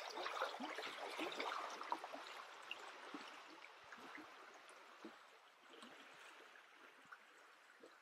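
Shallow creek babbling and trickling, a steady watery patter that slowly fades.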